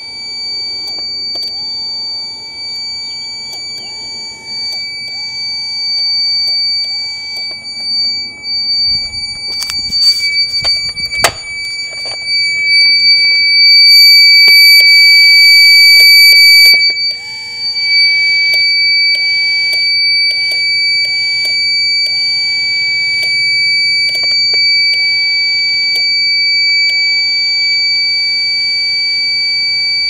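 Battery backup sump pump control unit's alarm buzzer sounding one steady, high-pitched warning tone, louder for a few seconds midway. Faint music plays underneath, with a few handling knocks about ten seconds in.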